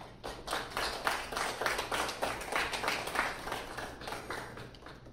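A small audience applauding, rising just after the start and fading out near the end.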